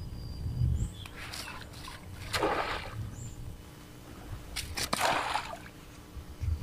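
Pond water sloshing and splashing in three short bursts, as the water is disturbed during crab-trap harvesting.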